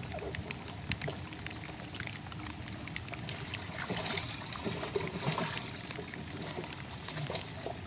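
Pond water splashing and sloshing around people wading waist-deep, with many small irregular splashes and drips as a large fish is handled at the surface.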